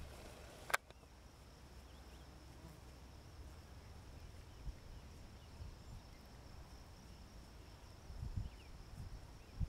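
Quiet field ambience: a steady thin high insect buzz over a low wind rumble, with one sharp click just under a second in and a few soft low thumps near the end.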